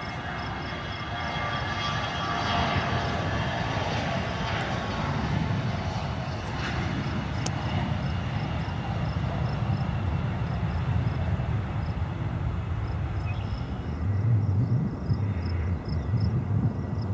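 Bombardier CRJ regional jet's GE CF34 turbofans whining over a steady rumble as the jet rolls along the runway. In the last few seconds the high whine falls away and a deeper low rumble takes over.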